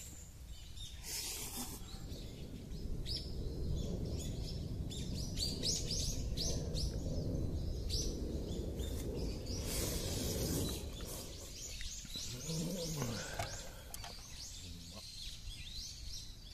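Small birds chirping: many quick, high chirps through the first two-thirds, over a low, steady rumble.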